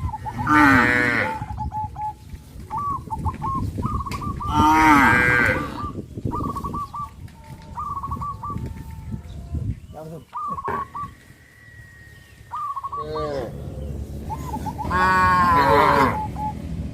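Cattle in a herd mooing: loud moos about half a second in, around five seconds in and near the end, each about a second long, with fainter short calls in between.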